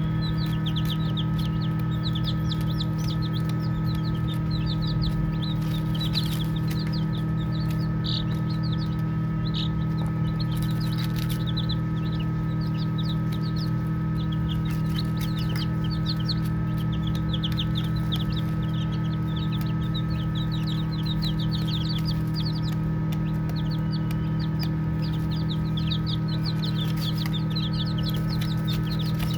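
Baby chicks peeping: many short, high chirps, each sliding down in pitch, coming in busy runs that thin out briefly a few times. A steady low hum runs underneath.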